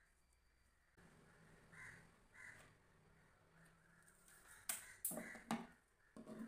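Crows cawing faintly in the background, two short caws about two seconds in. Later, a few sharp clicks and rustles from handling a measuring tape and cloth on the table, louder than the caws.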